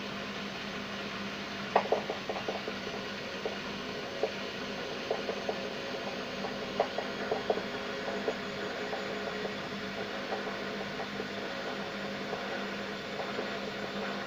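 Beko washing machine running on spin with a steady hum, broken by irregular sharp cracks and knocks, mostly in the first half: the strong crackling it makes on spin.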